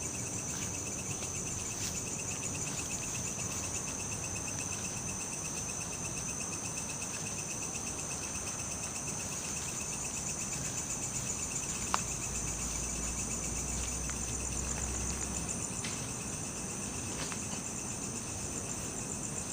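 Steady chorus of insects: a continuous high, shrill, finely pulsing trill. A single sharp click sounds about twelve seconds in.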